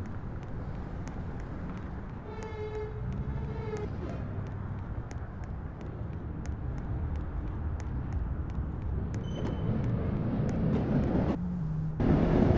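New York City subway train (the 2 train) running, its rumble growing steadily louder, with faint regular clicking. Two short tones sound about two seconds in, and the noise jumps suddenly louder near the end.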